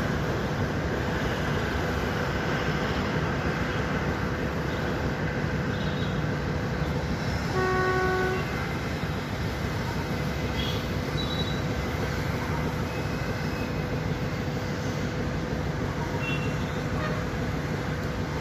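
Old railcar pulling away down the line with a steady low rumble. It gives one short horn toot about eight seconds in.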